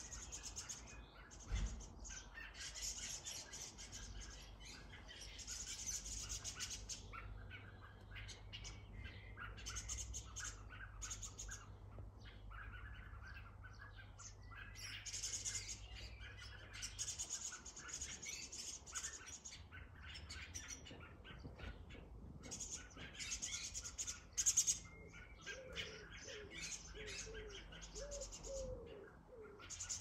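Garden songbirds chirping and chattering in a dense, busy chorus that comes in bursts with short pauses. There is a low knock about one and a half seconds in.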